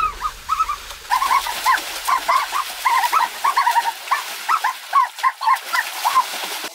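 Bird calls: a rapid run of short, rising-and-falling calls, several a second, with a brief pause about a second in.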